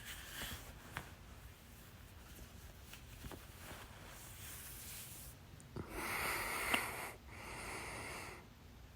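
A person hiccuping: a few short, sharp catches between noisy breaths. The two loudest breaths, each about a second long, come about six and eight seconds in.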